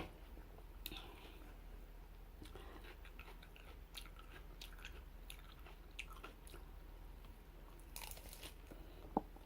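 A person chewing food close to the microphone: faint, scattered wet mouth clicks and smacks, with a short cluster of louder clicks about eight seconds in.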